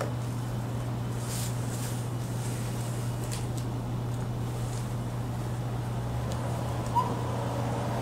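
Steady low background hum, with a few faint clicks from a small Phillips #000 screwdriver working the tiny bottom-case screws of a white MacBook.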